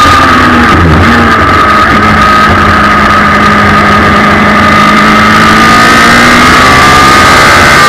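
Suzuki Hayabusa inline-four motorcycle engine in a race car, heard loud from onboard: its pitch drops about a second in as the car slows for a corner, holds steady through the bend, and rises again near the end as it accelerates out. A steady high whine sits above the engine throughout.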